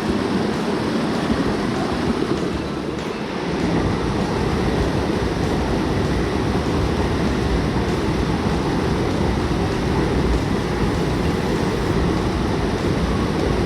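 Mountain stream water rushing steadily over rocks, a constant wash of noise that grows fuller and deeper about three and a half seconds in.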